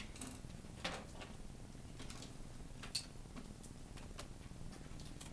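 Faint, scattered clicks and light taps over quiet room tone, the sharpest about three seconds in.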